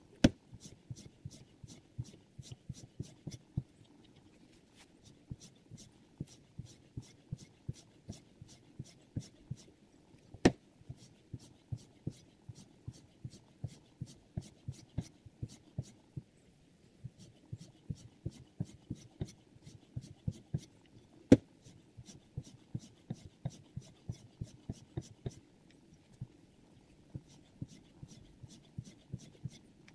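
Sharpening stone on a Hapstone R2 guided knife sharpener, stroked along the clamped blade in sped-up footage: quick repeated scraping clicks about three a second, with a few short pauses. Three louder knocks stand out, about ten seconds apart.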